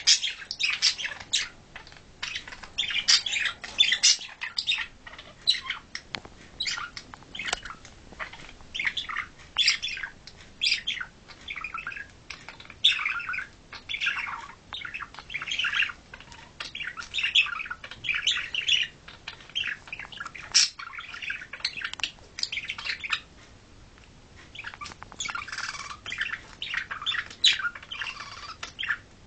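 Pet budgerigars chattering: a continuous run of short chirps and squawks, with a brief pause about three-quarters of the way through.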